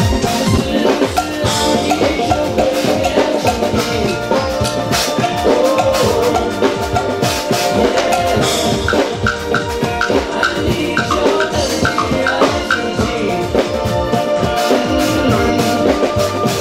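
A compact drum kit with cymbals, snare, toms and a small bass drum, played with sticks to a steady beat over a backing music track with a melody.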